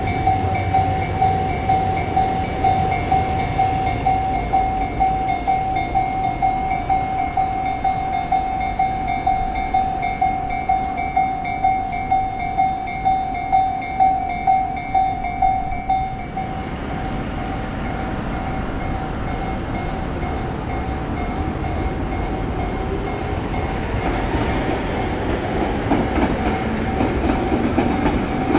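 Railway level-crossing warning bell ringing in a steady beat, about one and a half strokes a second, and cutting off suddenly about halfway through. An electric train then approaches: wheel rumble and a rising motor whine grow louder toward the end.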